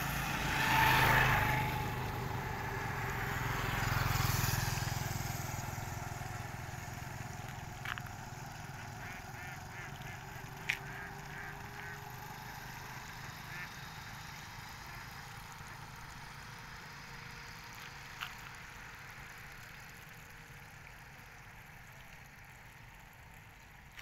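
Motorcycle on the road passing by, its engine loudest about a second in and again about four seconds in, then fading into a faint steady hum. A few sharp clicks stand out later.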